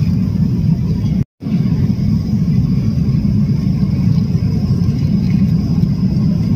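Steady low drone of an airliner's cabin in flight, the jet engines and airflow heard from inside. It breaks off for a split second about a second in, then carries on unchanged.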